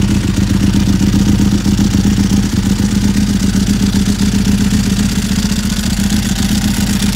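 Ducati 996R's 998 cc L-twin engine running steadily through its SIL Moto Italia titanium exhaust: a loud, even beat that holds one pitch.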